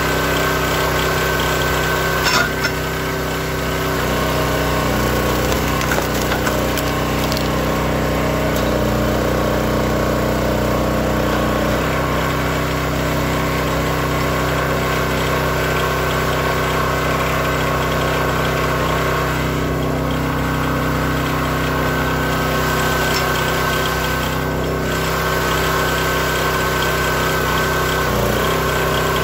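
Hydraulic log splitter's small gasoline engine running steadily, with a sharp crack about two seconds in.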